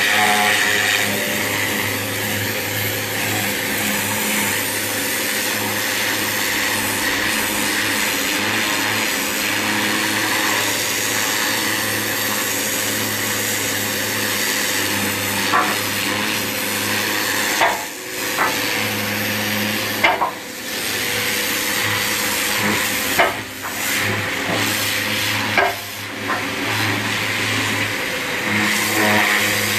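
A high-pressure washer jet blasts barnacles off a boat hull: a steady hiss of spray over the steady hum of the washer's motor. In the second half the spray breaks off briefly several times and then starts again.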